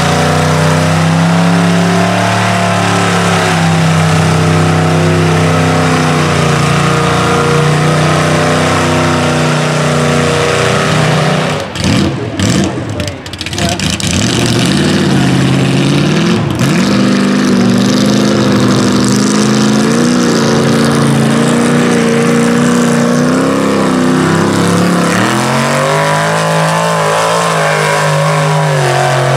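Lifted Chevy mega truck's engine running hard and revving as it ploughs through deep mud, its pitch holding steady then shifting. There is a brief break about twelve seconds in, and the engine climbs in pitch again near the end.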